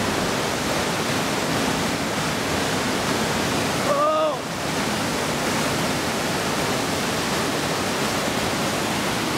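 Class V whitewater rushing down a steep rocky cascade: a steady, loud roar of water. About four seconds in, a brief shout rises and falls over it.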